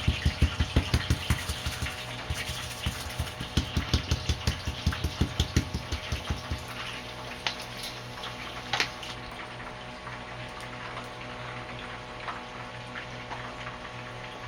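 Wet hands patting a ball of corn masa (harina P.A.N. dough) flat, with quick, even pats, about three a second, that stop after about six seconds. A steady low hum and faint hiss continue underneath.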